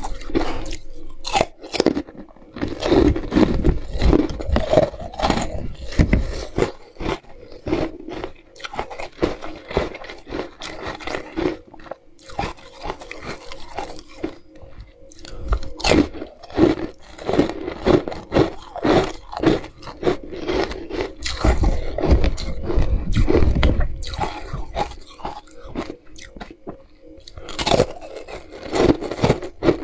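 Close-miked biting and crunching of hard frozen flavoured ice, a run of sharp cracks and crackles with heavier chewing crunches at times.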